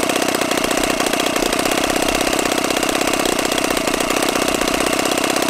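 12cc Whippet model engine running steadily at idle, with a fast, even firing beat.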